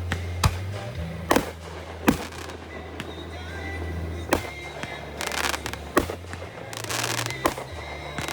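Fireworks going off: a string of sharp bangs about a second apart, with two bursts of crackle in the second half. Music with a steady bass line plays underneath.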